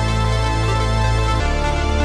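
Amiga demo music played on the Amiga's sample-based sound chip: sustained melodic tones over a held bass line, which moves to a new bass note about one and a half seconds in.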